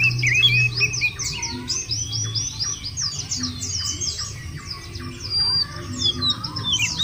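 Several white-eyes (pleci, Zosterops) singing at once: a dense, unbroken run of rapid, high twittering notes sliding up and down, over a faint low hum.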